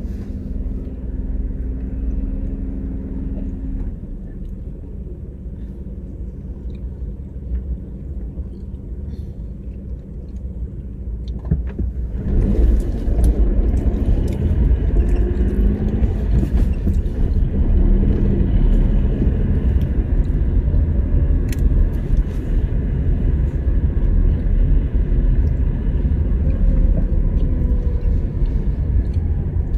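Car driving in city traffic: a low engine rumble while nearly stationary, then about twelve seconds in the car pulls away and a louder, steady rumble of engine and road noise follows.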